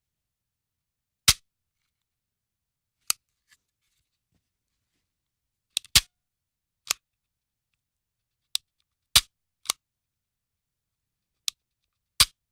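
Handgun dry-firing: sharp, short metallic clicks of the firing mechanism snapping on an empty chamber. About nine single clicks come at irregular gaps of roughly half a second to two seconds, some louder than others.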